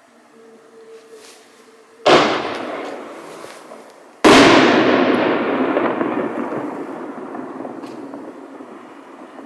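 Firework artillery shells bursting in the air: a sharp bang about two seconds in, then a louder second bang about two seconds later whose sound fades away slowly over several seconds.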